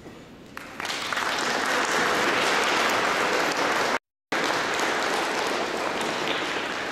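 Audience applauding, breaking out suddenly about a second in and easing off slightly near the end, with a brief gap of silence midway.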